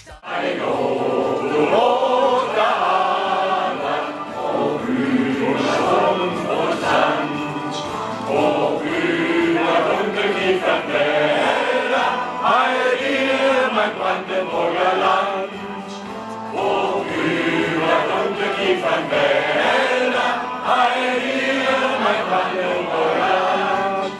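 A group of men singing a song together in chorus, with musical accompaniment.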